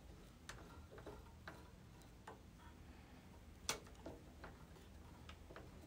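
Faint, irregular clicks of the Sansui 800 receiver's front-panel knobs being turned by hand, with one louder switch click about two thirds in.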